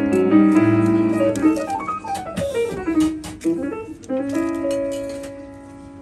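Jazz piano played on a grand piano: chords and quick notes, a descending run about two seconds in, then held chords that die away near the end.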